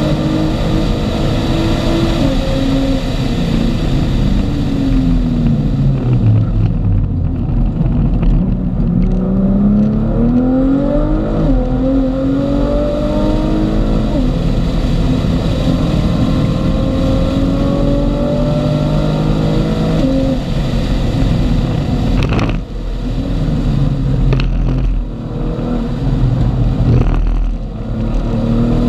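A car engine heard from inside the cabin while driving hard on track. Its note falls over the first few seconds as the car brakes and slows, climbs steeply again under acceleration, holds steady, then drops, with three brief dips in the sound near the end, over a steady rush of road and wind noise.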